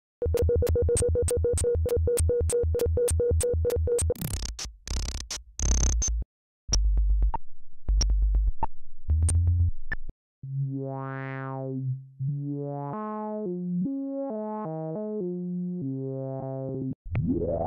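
Analog Behringer CAT synthesizer loops played one after another. First comes a fast, evenly pulsing buzz, then choppy stuttering bursts with short gaps, then a run of short notes stepping up and down in pitch.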